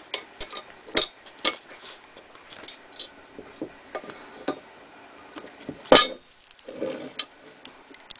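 Small metallic clicks and taps of a brass .30-30 case being seated in the Lyman Universal Case Trimmer's shell holder and the clamp being tightened down, with one louder sharp clack about six seconds in.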